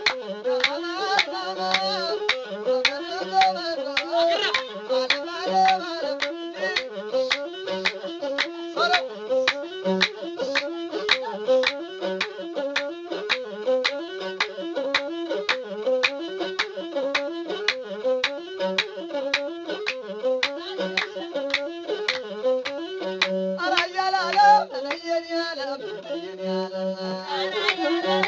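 Ethiopian azmari music: a masinko, the one-string bowed fiddle, plays a repeating stepped melodic figure over a fast, steady percussive beat.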